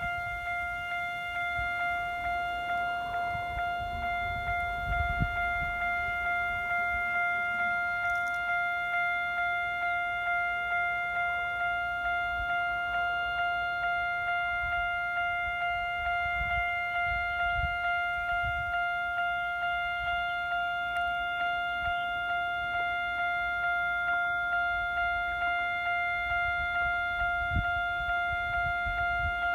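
Japanese railway level-crossing warning bell ringing, one pitched ding repeated at an even pace without a break.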